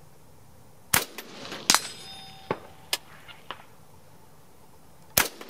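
Two shots from a .224 Valkyrie Savage MSR-15 gas-operated rifle, about four seconds apart, one about a second in and one near the end. Each shot is followed by a few metallic clinks and a short ringing tone.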